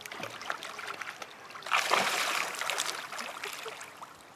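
Öland geese splashing in pond water as they bathe, a churning, sloshing noise that grows loudest about two seconds in and dies down near the end.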